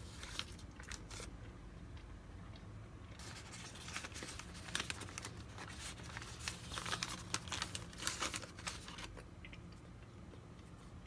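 Brown paper bag crinkling and being torn open by hand: a few short rustles at the start, then a longer stretch of dense crinkling and tearing from about three seconds in until about nine seconds.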